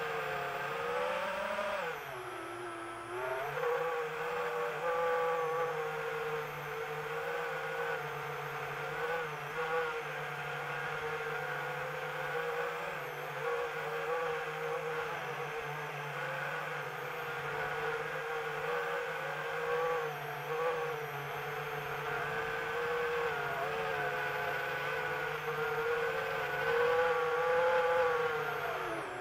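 Multirotor drone's electric motors and propellers whining steadily. The pitch dips about two seconds in, then recovers and wavers slightly as the drone manoeuvres.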